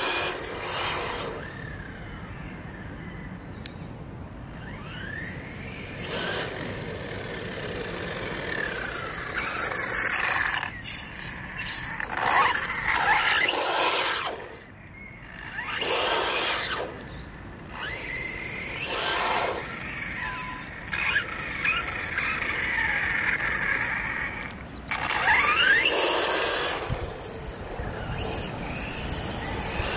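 Small electric RC cars' motors and gear trains whining as they drive, the pitch rising and falling with the throttle, louder on each of several passes close by.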